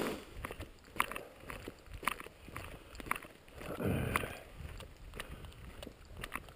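Footsteps on a dirt and gravel road at a steady walking pace, with a brief rustling whoosh about four seconds in.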